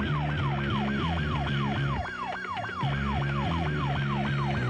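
Police car siren on a fast yelp, each wail falling in pitch, about four a second, over low sustained notes.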